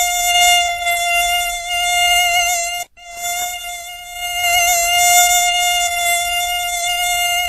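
Mosquito wingbeat whine, a steady high-pitched buzz close to the ear with a slight waver in pitch. It cuts out abruptly about three seconds in and swells back within a second.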